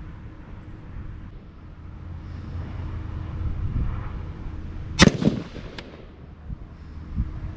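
A single AR-15 rifle shot about five seconds in, sharp and loud, with a short echo trailing after it.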